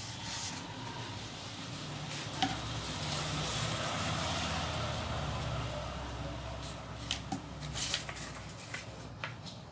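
Sheet of paper being folded in half and creased by hand, with a few short crackles of the paper. A low rumbling background noise swells up and fades away in the middle.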